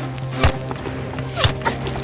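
Background music with a steady low drone and a sharp percussive hit about once a second.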